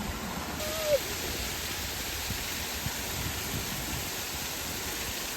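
Waterfall's falling water, a steady even rushing noise.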